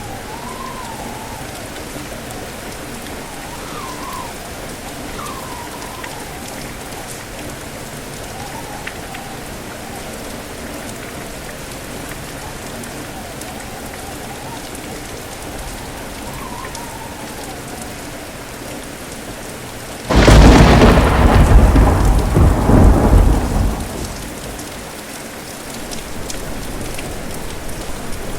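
Steady heavy rain. About two-thirds of the way in, a sudden loud clap of thunder cracks and rumbles for about four seconds, then fades back into the rain.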